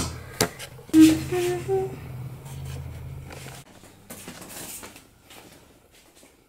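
A couple of clinks, then a person humming three short notes that step up in pitch over a low steady hum. The hum stops about three and a half seconds in, leaving only faint small handling sounds.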